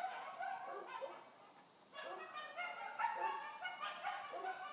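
A chorus of coyotes yipping and howling together, many high, wavering calls overlapping at once. It thins out briefly about one and a half seconds in, then picks back up.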